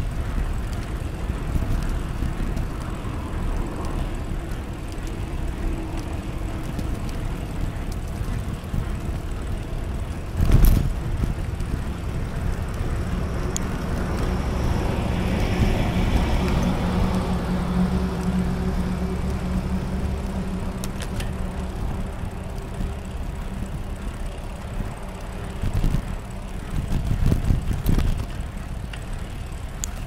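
Steady low rumble of a bicycle ride on a paved path. A motor vehicle passes and swells around the middle with a steady low hum, and a sharp knock comes about a third of the way in, with a couple of bumps near the end.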